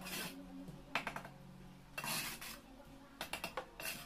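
Steel mason's trowel scraping and clinking against mortar and concrete blocks: a few short scrapes and clicks, roughly one a second.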